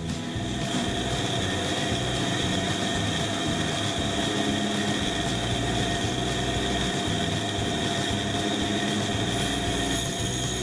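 Pégas fine-cut band saw running steadily with a high whine as its thin blade cuts a small block of wood, the piece being turned through the curves.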